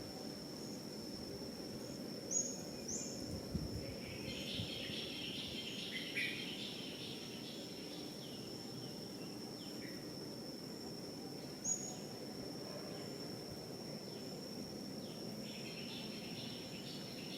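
A steady, high-pitched insect drone, with a few short, high chirps and some patches of fainter chatter over it.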